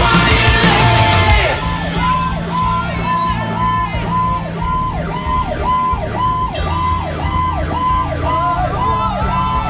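Rock music cuts off about a second and a half in and gives way to a fire apparatus's electronic siren yelping, about two rapid rise-and-fall cycles a second, over a low engine rumble.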